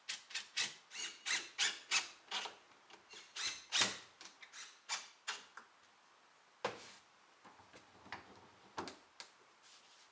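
A rapid series of short rasping, rubbing strokes, about three a second, thinning out after about six seconds, with a sharp knock near seven seconds.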